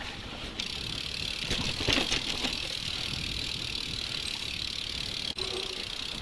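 Mountain bike rolling along a dirt singletrack: steady tyre noise on the dirt with the bike rattling over the bumps, and a few sharper knocks about two seconds in.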